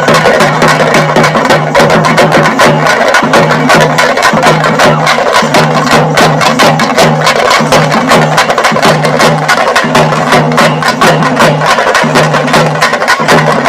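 Fast, dense drumming music with a low note repeating about twice a second under the beats.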